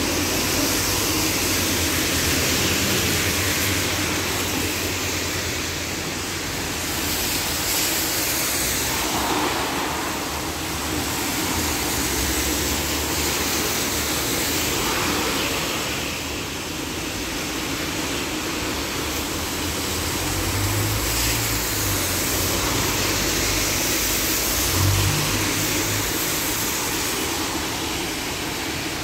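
Road traffic on a rain-wet street: cars and buses passing with their tyres hissing through the water, the hiss swelling as each vehicle goes by. A heavier engine drones low for several seconds past the middle.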